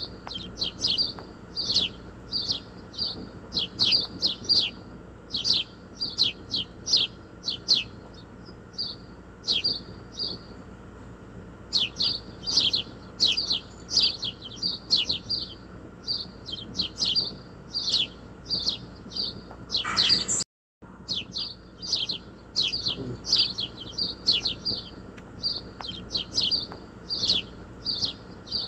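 Graphite pencil scratching on drawing paper in quick short hatching strokes, a few a second. The strokes thin out for a few seconds about a third of the way in, and the sound cuts out for a moment about two-thirds through.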